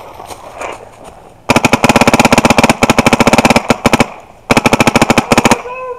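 Paintball marker firing two rapid strings of shots close to the microphone: a long run of about two and a half seconds, a short break, then a second burst of about a second.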